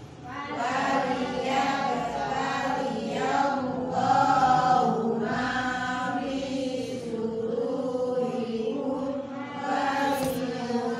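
Several voices chanting a Qur'an verse together in unison, in a drawn-out melodic recitation (tilawah), going on without a break.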